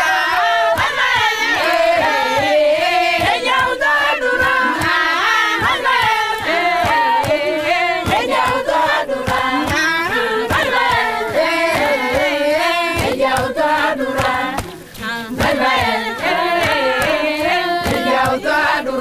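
A group of voices singing together, with hand claps keeping the beat. The singing drops away briefly about fifteen seconds in, then picks up again.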